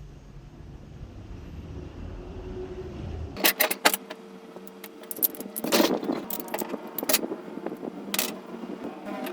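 A low rumble, then, about three and a half seconds in, an abrupt change to a steady hum with irregular metallic clicks and clinks, like small metal tool parts being handled and set down.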